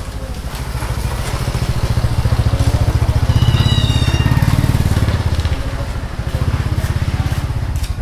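A motorcycle passing close by, its engine growing louder to a peak about three and a half seconds in and then fading.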